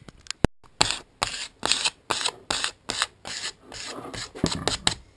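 Spilled grit and fine gravel being brushed by hand across a wooden workbench, in about ten quick rough scraping strokes roughly two a second, after a single sharp click at the start.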